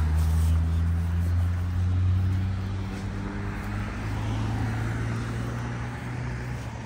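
A road vehicle's engine running with a low steady drone that slowly fades away.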